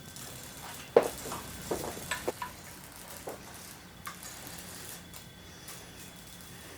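Small metal tools and parts being handled and set down on a workbench: one sharp clack about a second in, then several lighter clicks and taps.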